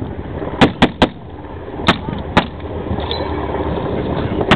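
Scattered rifle shots from reenactors firing blanks: three quick cracks about a second in, two more around two seconds, and one more at the end, over a steady background rumble.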